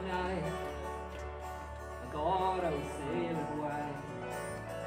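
Live band playing a country-folk song, with keyboard and guitar. A melody line swoops up and back down about two seconds in.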